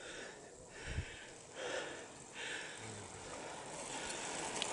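A person breathing close to the microphone: short, even, hissing breaths, about one every three-quarters of a second.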